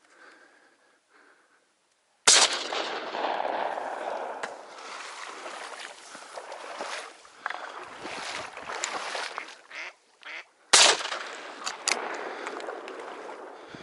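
Two shotgun shots, one about two seconds in and a second about eight seconds later. Ducks quack in between and after the shots.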